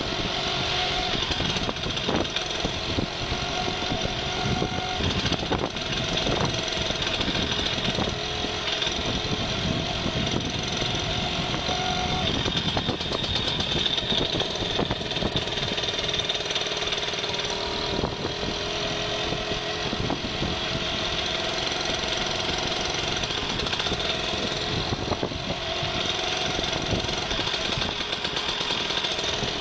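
A motor vehicle's engine running steadily at low road speed, its pitch shifting slightly up and down.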